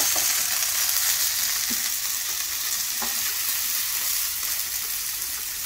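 Bacon-wrapped green onions sizzling on an electric contact grill: a steady high hiss of frying fat that slowly fades, with a couple of faint taps.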